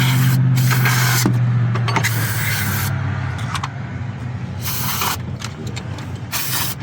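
Aerosol cleaner sprayed into a throttle body held open, in about five short hissing bursts. A low steady hum fades out over the first few seconds.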